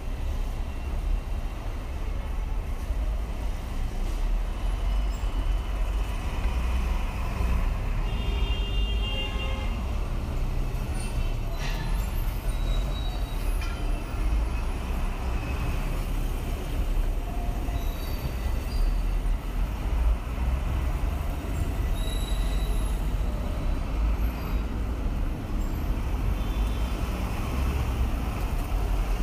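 City traffic under an elevated road: a steady low rumble of engines and tyres, with a brief high squeal about eight seconds in and a short click a few seconds later.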